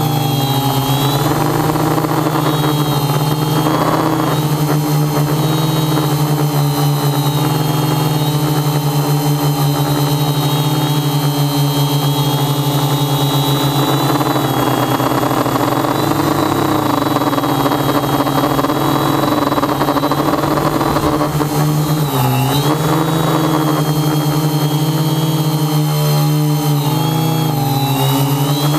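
Quadcopter's electric motors and propellers whining steadily, heard close up from the camera on the craft. The pitch dips briefly about three-quarters through and wavers again near the end as the throttle changes.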